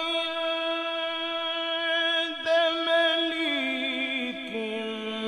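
A male Quran reciter (qari) chanting in melodic tilawat style, drawing out a long held note. The voice breaks off briefly about two and a half seconds in, then steps down in pitch over the last couple of seconds.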